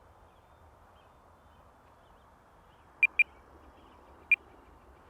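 Short, high electronic beeps from an RC transmitter over faint outdoor background: two in quick succession about three seconds in, then one more a second later.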